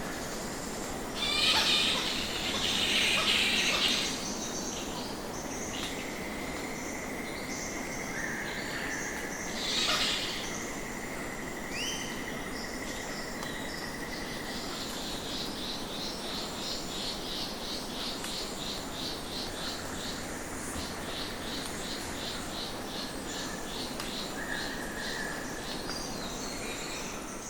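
Nature ambience of several birds calling and chirping. A steady high tone holds for several seconds, then a fast, even run of chirps carries on to the end.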